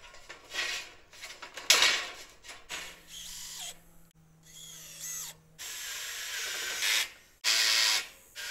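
Power drill driving roofing screws through a tin roofing sheet, the motor whirring in several short spells with its pitch rising as it speeds up, and a loud metallic clank from the sheet about two seconds in.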